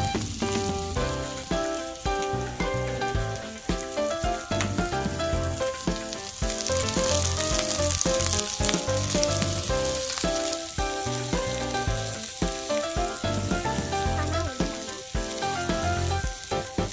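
Food sizzling as it fries, a steady hiss that swells for a few seconds midway, over background music.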